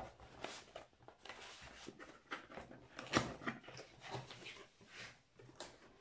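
Cardboard box top flaps being pried open and folded back by hand: irregular scraping, rustling and small knocks of cardboard, with a sharp click at the start and a louder knock about three seconds in.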